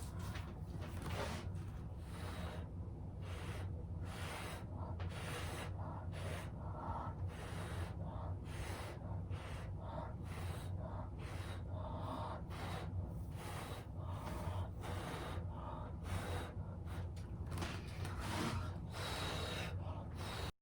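Repeated short puffs of breath blown by mouth, one or two a second in an irregular run, pushing wet acrylic paint across the canvas in a Dutch pour done without a hair dryer. A steady low hum sits underneath.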